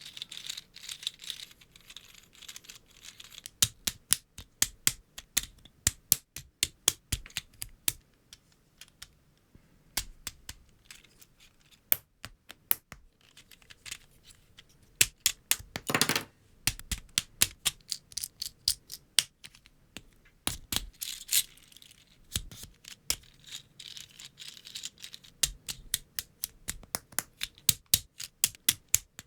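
LEGO Technic parts being assembled: a long, irregular run of sharp plastic clicks and snaps as pins and beams are pressed together, with light rustling of loose pieces. A longer noisy burst comes about halfway through.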